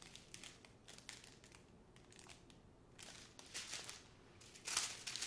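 Small plastic zip-top bags of diamond painting drills crinkling and rustling as they are handled and set down, with a louder rustle near the end.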